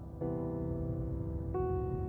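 Slow background music of held chords that change twice.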